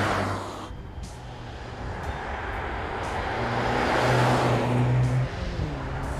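Mercedes-AMG C63 S E Performance, a 2.0-litre turbocharged four-cylinder hybrid, driving past. One pass fades out in the first second. The car then comes up and passes close about four to five seconds in, and its sound drops off sharply just after that.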